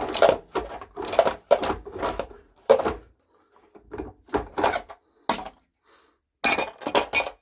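Irregular metallic clanks and knocks of a wrench on the anode rod nut atop an electric water heater as the nut is worked loose, with a quick run of clanks near the end.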